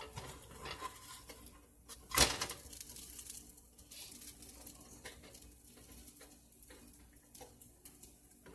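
Slotted plastic spatula knocking and scraping against a nonstick frying pan as a pancake is pressed down, with scattered light clicks and one sharp clack about two seconds in.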